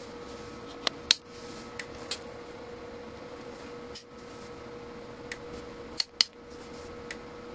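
Sharp clicks from a multimeter's rotary selector switch being turned through its detents, about eight in all, several in quick pairs, the loudest about a second in and about six seconds in. A faint steady whine runs underneath.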